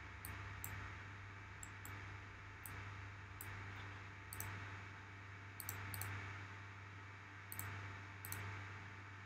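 Faint, irregular computer mouse clicks, a dozen or so scattered through, over a steady low hum and hiss.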